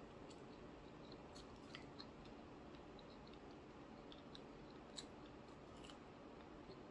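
Faint chewing with scattered soft mouth clicks and smacks. A sharper click comes about five seconds in.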